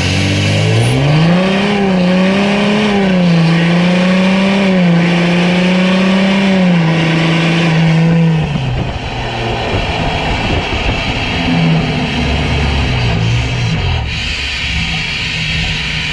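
Straight-piped 2018 VW Amarok 3.0 V6 turbodiesel revved up about half a second in and held at high revs, wavering slightly. About eight and a half seconds in it drops back to lower, uneven revs with small blips.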